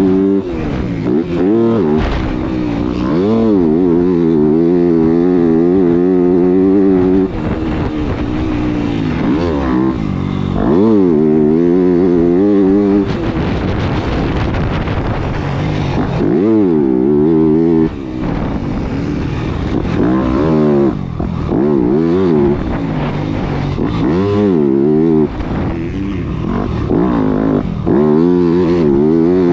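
Yamaha motocross bike engine revving hard and rolling off again and again under riding, its pitch climbing and then dropping sharply several times as the throttle is opened and chopped.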